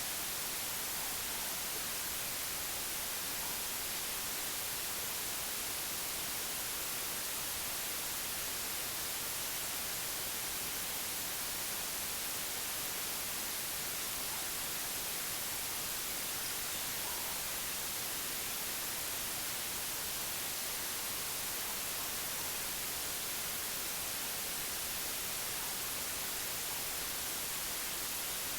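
Steady white noise: an even, unbroken hiss, brightest in the high end, that never changes.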